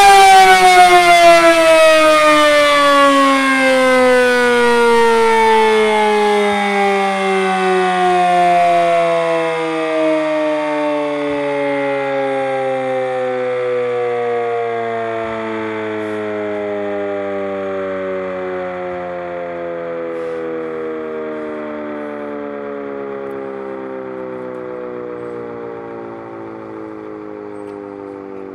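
Sterling Model M fire siren, driven by a three-phase motor, winding down: one long tone with many overtones that glides steadily lower in pitch and fades.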